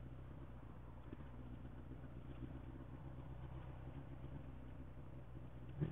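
Motorcycle engine running steadily at low revs while riding slowly through stopped traffic, with a brief knock just before the end.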